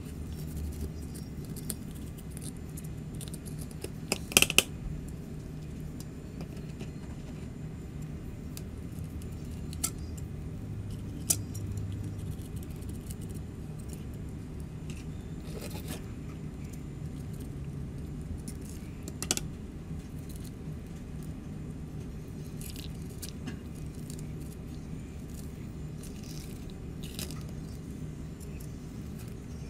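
Fillet knife cutting and scraping through a fish on a plastic cutting board, with scattered sharp taps and clicks of the blade on the board, the loudest a quick cluster about four seconds in. A steady low hum runs underneath.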